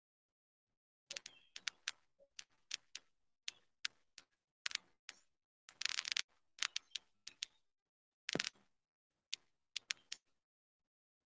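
Irregular clicks of a computer keyboard and mouse, starting about a second in, with a quick run of clicks about six seconds in.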